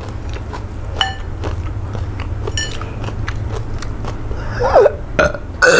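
Close-miked eating sounds: small wet clicks and smacks as a lump of eba is pinched off by hand, then a loud burp near the end.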